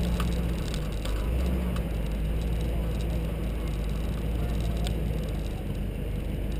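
Nissan GU Patrol's TB45 4.5-litre straight-six petrol engine running steadily at low speed, with tyre and road rumble from the dirt track and a few light clicks.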